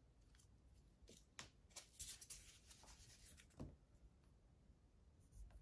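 Faint scratching of a dry-erase marker writing on a small whiteboard: a handful of short strokes between about one and three and a half seconds in.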